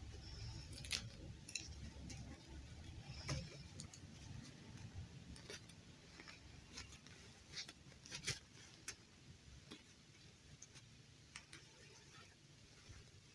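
Faint handling sounds as a fabric dress is pulled off a plastic fashion doll: scattered small clicks and light rustling, a few each second.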